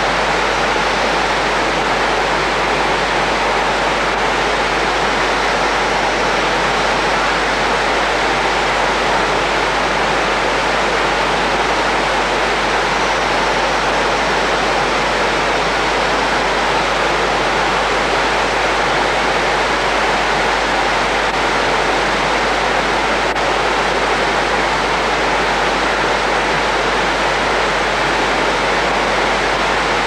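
Waterfall: water pouring down a rock face and over boulders, a steady, unbroken rush.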